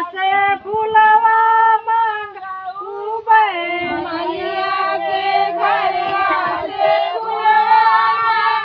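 Women's voices singing a slow, melodic song together, with long held notes.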